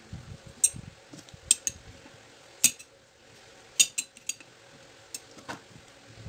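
Fresh cucumbers being packed into a large glass jar, knocking and clinking against the glass in a string of sharp, irregular clicks.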